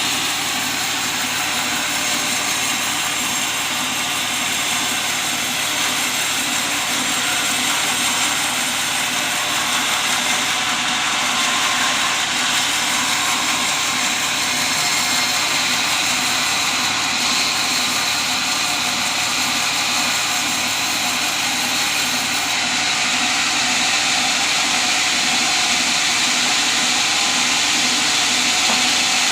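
Sawmill saw running steadily while cutting teak timber into beams: a continuous, loud, hissing mechanical noise that grows slightly louder near the end.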